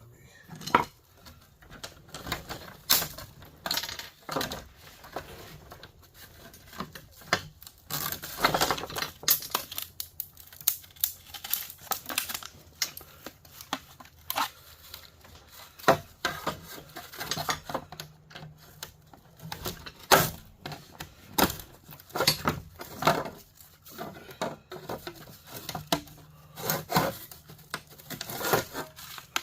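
Small metal parts and screws clinking and clattering, with many irregular sharp clicks and knocks, as a line conditioner is taken apart by hand for scrap.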